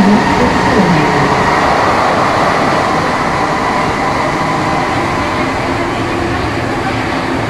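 Alstom NS-16 rubber-tyred metro train running, heard from inside the car: a steady rolling rumble with a faint whine, easing slightly as the train nears the terminus station.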